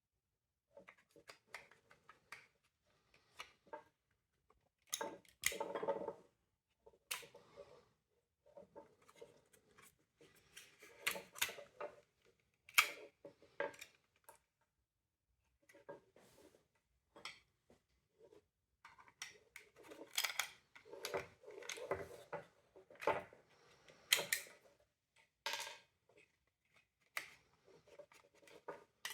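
Irregular clicks, taps and short scrapes of parts being handled and taken apart, from a window vacuum cleaner's casing being disassembled.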